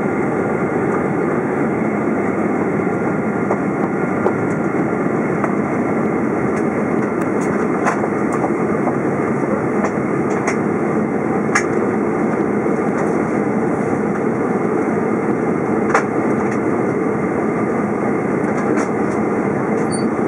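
Steady roar of engine and airflow noise heard inside the cabin of a Boeing 767-400ER descending on approach, with a few faint clicks.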